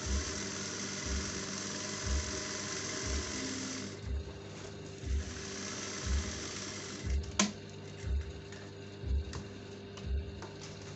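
Juki industrial sewing machine running as fabric is stitched, in a run of about four seconds, a brief pause, and a second run that ends with a sharp click about seven seconds in. A steady music beat thumps about once a second throughout.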